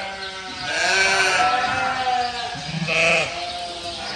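Sheep bleating twice: a long bleat about a second in and a shorter one near the three-second mark.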